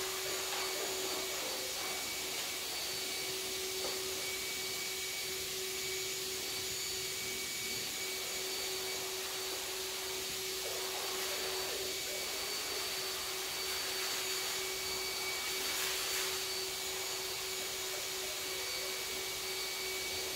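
Steady whirring hum of a running electric motor, with a constant pitched whine over a hiss.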